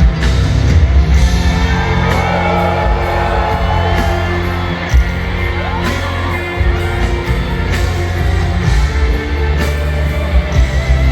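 Live pop concert music played loud over a venue sound system, with heavy, sustained bass and regular drum hits, heard from the audience floor.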